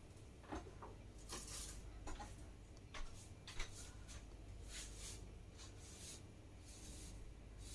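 Faint light handling noises: scattered soft rustles and a few small clicks, the sharpest about three and three and a half seconds in, over a steady low hum.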